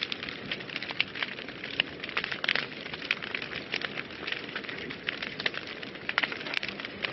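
Wood fire burning in a fireplace, a steady hiss with many small irregular crackles and pops.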